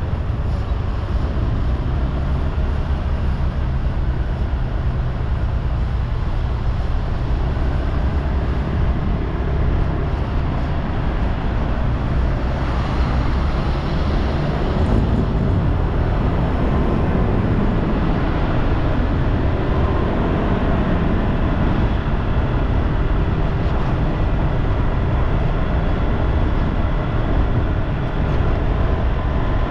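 Steady road traffic noise: vehicle engines and tyres with a deep, constant rumble.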